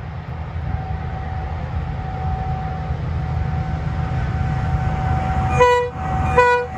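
Diesel-hauled freight train approaching, its low engine rumble growing steadily louder. Near the end the locomotive horn gives two short toots, a little under a second apart.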